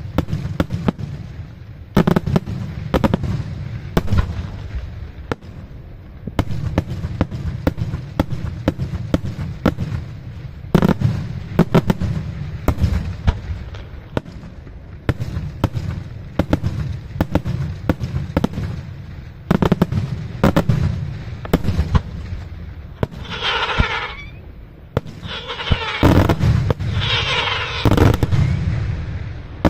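Daytime aerial fireworks: shells bursting overhead in a dense run of bangs and cracks, one after another, with a low rumble between them.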